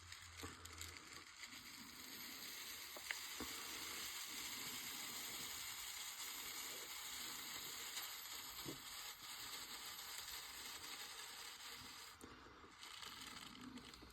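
Dry desiccant media poured from a bag into a compressor's filter tube: a faint, steady hissing trickle of granules that starts about a second and a half in and stops near the end, with a few small ticks.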